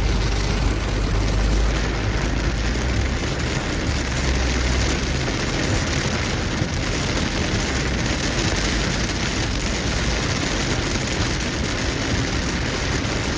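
Heavy rain on a moving car, mixed with steady tyre and road noise. A deep low rumble sits under it for the first few seconds, then fades.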